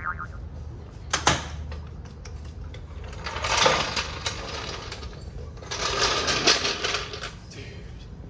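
A wrench running a wheel's lug nuts down: two bursts of rapid metallic clicking and rattling, each about a second long, with a sharp clack about a second in.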